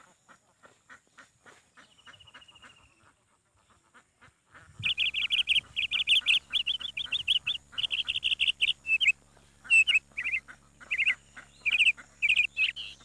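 Ducks quacking faintly in quick runs, then from about five seconds in loud, rapid, high-pitched bird chirping in quick bursts over a low steady hum.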